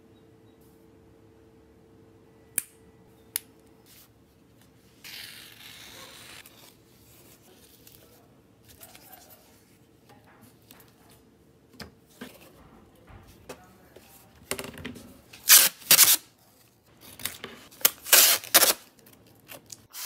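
Small handling sounds of mechanical-keyboard parts: a few sharp clicks and taps of plastic and metal pieces, and a stretch of rustling. Near the end, several loud crisp bursts of a sheet of packing material being handled.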